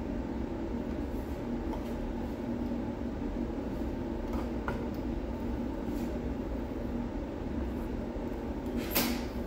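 A few faint clicks and, near the end, one short scrape as a thin metal pry tool works at the edge of a 2.5-inch hard drive's cover, over a steady low background hum.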